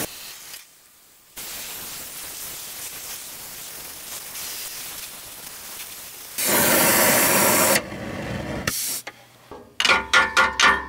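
Hand-held gas torch hissing steadily as its flame heats a rusted exhaust sleeve joint, louder for a second or so past the middle. Near the end, a quick run of sharp metallic knocks: blows on the exhaust pipe to break it loose.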